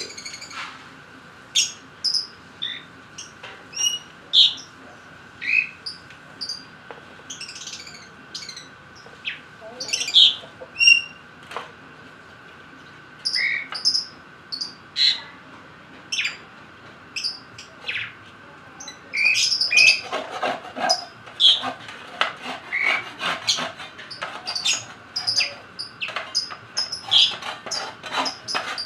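Lovebirds chirping: short, sharp, high calls scattered throughout, coming thicker and faster in the last third.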